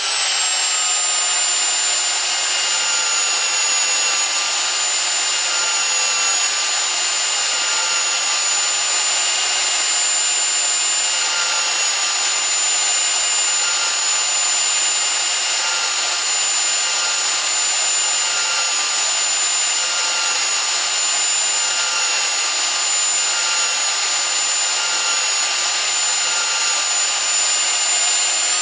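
Electric drill clamped to a workbench, driving a wire wheel brush at a steady speed with a constant high whine. A coin's edge is held against the spinning wire bristles to brush off the burr.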